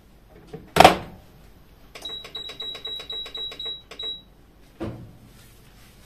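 Electric multicooker: its lid is shut with a loud thud about a second in, then its control panel gives a quick run of short, high beeps, about five a second for two seconds, as it is set to cook. A softer knock follows near the end.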